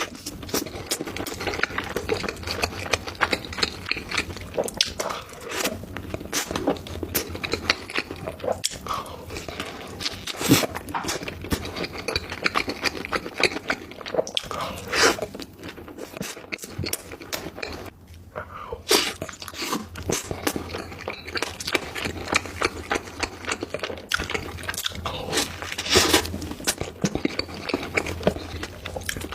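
Close-miked eating sounds: chewing and crunching, with dense small clicks and occasional sharper snaps as food is bitten.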